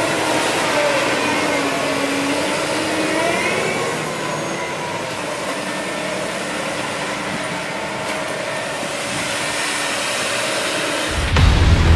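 Claas Lexion 6800 combine harvester driving by on the road, its diesel engine running under a steady rushing noise, with the engine tone shifting in pitch in the first few seconds. Near the end, music with a deep bass boom cuts in.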